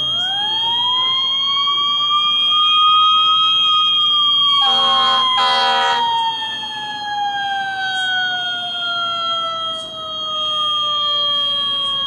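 Fire engine siren winding up over about four seconds, then slowly winding down, with two short horn blasts about five seconds in. Under it the building's fire alarm sounds a steady high-pitched tone.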